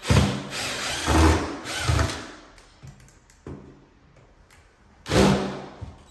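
Cordless drill-driver running in short bursts as it backs screws out of a skirting board: three quick bursts in the first two seconds, a pause, then one more burst near the end.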